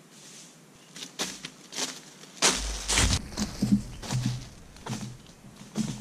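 Footsteps crunching through dry fallen leaves, a string of crackling steps that starts faint and becomes loud and close about two and a half seconds in, with a low rumble under the loudest steps.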